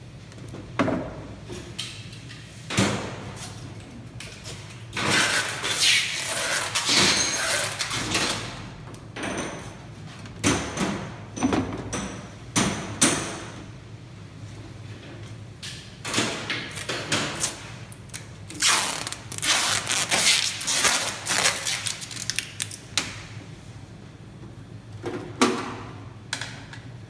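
A large metal plate on a snowboard forming press being shifted and handled: irregular metallic knocks and clanks, with two longer stretches of scraping and rattling. A steady low hum runs underneath.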